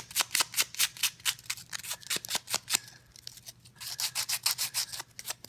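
A loose piece of sandpaper rubbed back and forth by hand over small scroll-sawn wooden letters, about four or five quick strokes a second. The strokes pause briefly a little past halfway, then start again.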